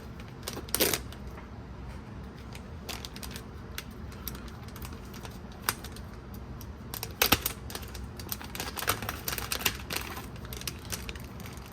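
Small metal RCA adapters being handled and fitted into an audio interface's jacks: scattered sharp clicks and light rattles, with a strong click about a second in, another about seven seconds in, and a cluster of clicks around eight to ten seconds in.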